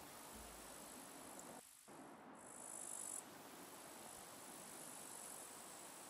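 Faint, steady high-pitched chirring of night insects such as crickets, dropping out briefly a little before two seconds in.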